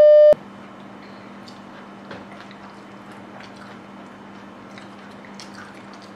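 A loud steady test tone that goes with colour bars cuts off abruptly about a third of a second in. After it there is only a faint steady low hum and scattered small clicks of a fork against a plate while a taco is picked apart.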